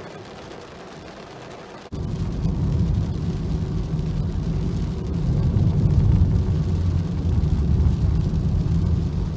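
Car driving on a wet road, heard from inside the cabin: a steady low rumble of engine and tyres. It starts suddenly about two seconds in, after a quieter stretch.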